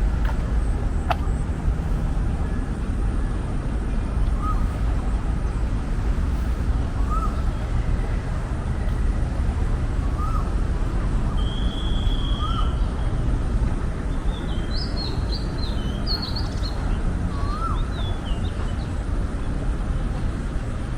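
Steady low rumble with birds calling over it: a short rising-and-falling call repeated every few seconds, one held whistle about halfway through, and a flurry of higher chirps a little after that.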